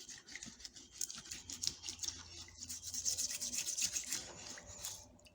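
Quick back-and-forth scrubbing on a rusty metal hand tool, a rapid run of rubbing strokes that stops shortly before the end.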